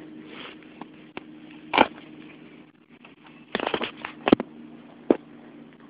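Alaskan Malamute puppy playing: scattered short clicks, scuffs and crunching noises, with a quick cluster of them about three and a half seconds in, over a steady low hum.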